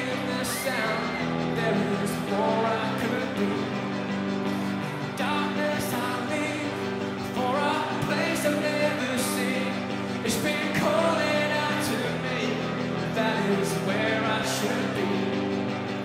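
Rock band playing live, with a male lead singer singing over electric guitar, bass and drums.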